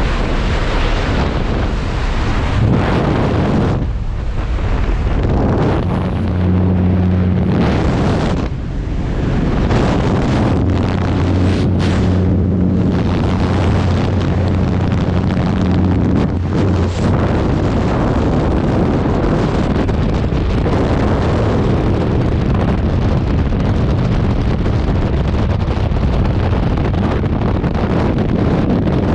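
Loud, steady rush of freefall wind buffeting the microphone of a skydiver's camera, with a low hum underneath between about six and sixteen seconds in.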